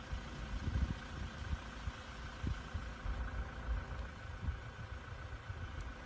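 Wind buffeting the phone's microphone in uneven low gusts, with a faint steady hum underneath.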